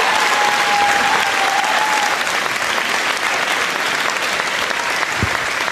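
A large theatre audience applauding, the clapping slowly dying down. A single long held note rings out over the applause and ends about two seconds in.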